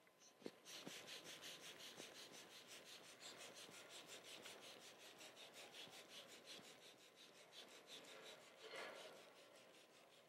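Hand balloon pump inflating a foil balloon: faint, rapid, even puffs of air, about six a second, stopping near the end.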